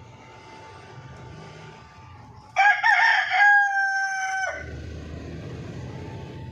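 A rooster crowing once, about two and a half seconds in: a wavering start, then a long held note that cuts off sharply about two seconds later.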